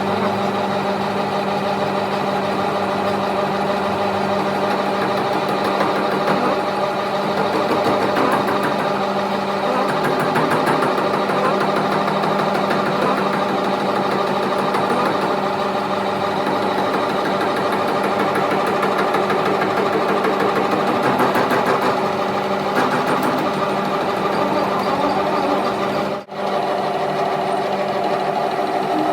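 A workshop machine running steadily with a constant mechanical hum. It cuts out for an instant near the end, then carries on.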